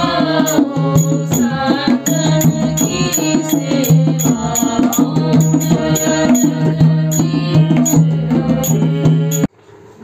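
Hindu aarti devotional song: singing over a steady drone with a regular, rattling percussion beat. It cuts off suddenly near the end.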